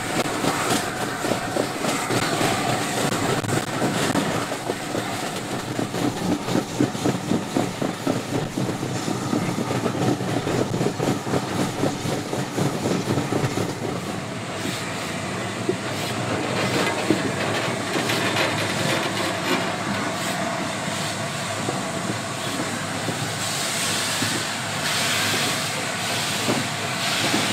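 Train hauled by LNER A4 steam locomotive No. 60007 Sir Nigel Gresley, heard from one of its coaches: a steady running noise with a fast rhythmic clatter of wheels over rail joints, strongest in the first half, and a hiss rising near the end.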